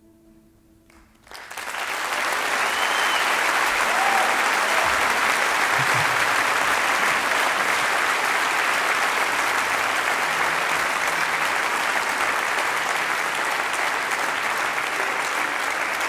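Soft music ends about a second in and sustained applause starts suddenly, running on steadily and loud.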